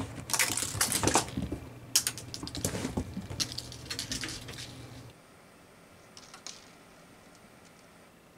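A cat's claws scrabbling and a plastic spiral spring toy skittering on a rug and vinyl floor, a fast run of small clicks and scratches. After about five seconds it drops off suddenly to a much quieter background with a few faint clicks.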